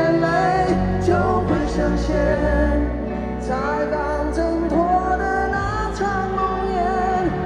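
Live concert music: a band playing a Mandarin pop song with singing over it and a steady bass underneath.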